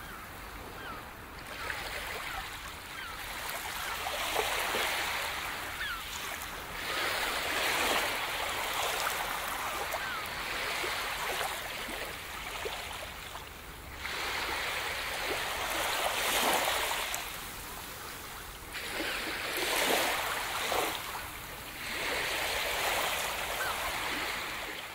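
Small sea waves washing onto a sandy beach, each swell rising and falling away over a few seconds.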